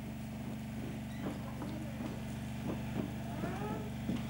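Faint background chatter of children's voices over a steady low electrical hum.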